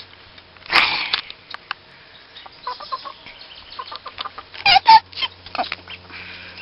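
Chicken clucking and squawking close by, with a short run of sharp calls about five seconds in. A loud rustle about a second in, and scattered rustling and knocks of handling and leaves throughout.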